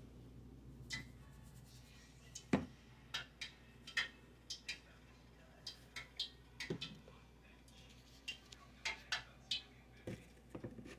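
Plastic spice shaker shaken and tapped over raw chicken wings in a plastic bowl: irregular clicks and taps, over a low steady hum.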